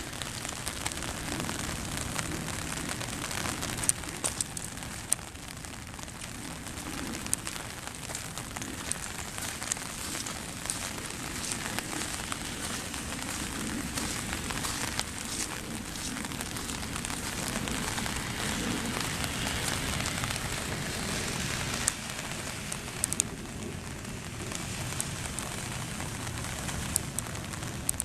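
Steady rain falling, with scattered sharp ticks of drops striking nearby.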